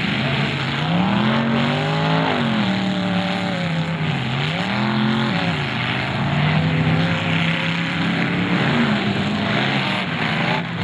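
Demolition derby car engines revving up and down over a continuous din. The engine pitch climbs and drops repeatedly as the cars accelerate and back off in the arena.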